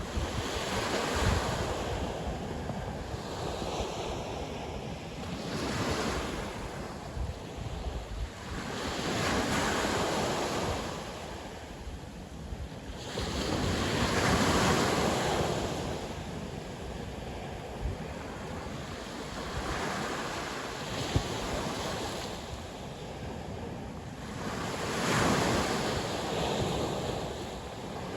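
Sea waves breaking and washing on the shore in slow, repeated swells every few seconds, with wind rumbling on the microphone.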